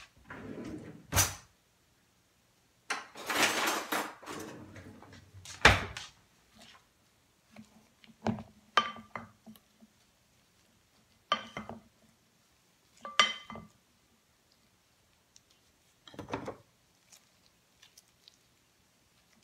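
Kitchen handling sounds, scattered knocks and a rustle, then a wooden spoon knocking against a glass mixing bowl four times with a short ring while sticky rice and filling are stirred together. The last few seconds hold only faint sounds of gloved hands kneading the rice.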